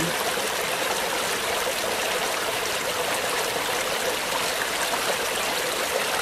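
Small rocky brook running steadily, a constant even wash of flowing water over stones.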